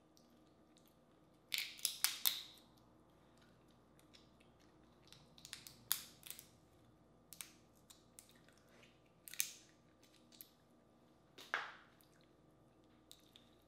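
Boiled crawfish shells being cracked and peeled apart by hand: clusters of sharp crackling snaps, the loudest about a second and a half in, with more every second or two after.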